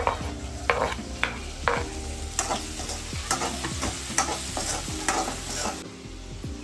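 A spoon stirring and scraping in a pan of onions and tomatoes frying in oil, with a sizzle under it. The scrapes come roughly once a second and ease off near the end.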